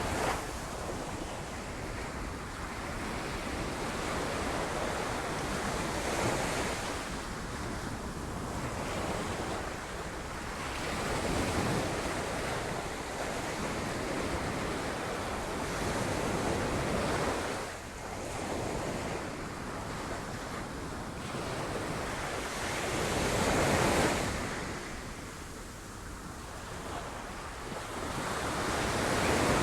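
Sea waves breaking against rocks: a continuous rushing wash that swells and falls back every five to six seconds.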